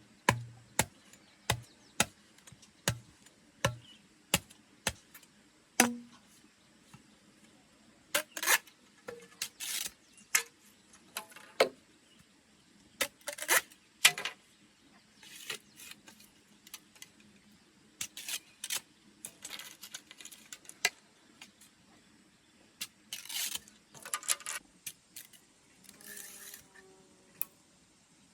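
A run of sharp knocks, about one every 0.7 seconds for the first six seconds, then scattered short bursts of rustling and scraping.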